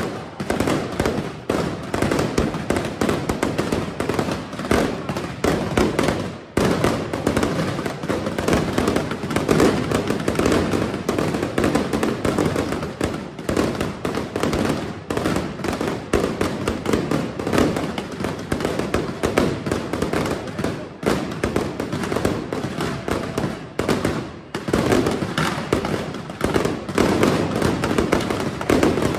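A close-range fireworks barrage: a dense, continuous stream of rapid bangs and crackles from shells and fountains fired in quick succession, with brief lulls about six and a half and twenty-four seconds in.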